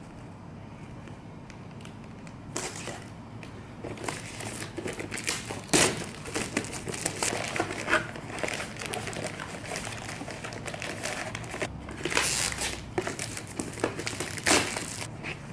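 Face-mask packaging being handled: crinkling and rustling of the masks' wrappers and their cardboard box as wrapped masks are pulled out. It starts about two and a half seconds in, with irregular sharper crackles coming and going.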